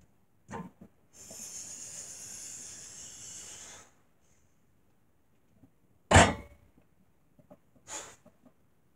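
Trap-bar deadlift of 326 kg: a long hissing breath of about three seconds under the lift, then a loud thud about six seconds in as the loaded bar's plates touch the floor between reps, and a short sharp breath near the end.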